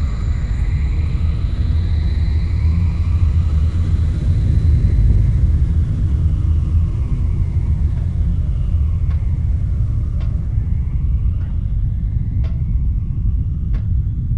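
Steady low industrial machine rumble, with a high thin tone fading out over the first few seconds. In the second half, sharp metallic clicks come about once a second over the rumble.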